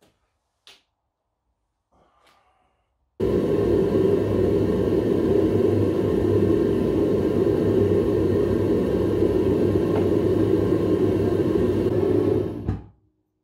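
Gas burner of a Devil Forge furnace running with a loud, steady, low rumble while it melts zinc. It starts abruptly about three seconds in and dies away quickly near the end.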